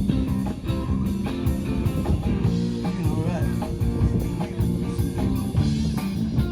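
Live band playing rock music: guitar over a steady drum beat.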